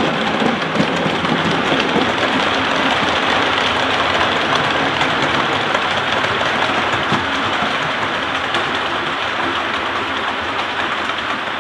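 A train running past on the track: a steady rattle and clatter of wheels on rails, easing a little toward the end.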